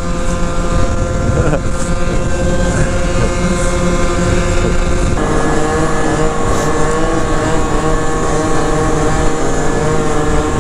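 Scooter engine running steadily at cruising speed under the rider, with wind rushing past; the engine note shifts slightly about five seconds in.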